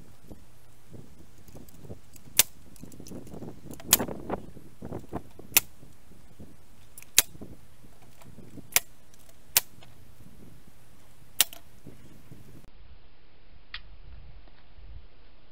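Pneumatic nail gun driving 3½-inch nails into pallet wood: seven sharp shots spaced one to two seconds apart, with a few lighter knocks of wood around four to five seconds in.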